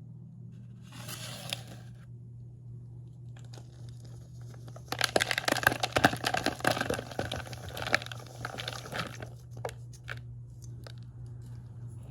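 Cornstarch chunks being crushed, squeaking and crunching. There is a brief crunch about a second in, then a dense run of crackling from about the middle, tailing off into scattered single crackles. A steady low hum runs underneath.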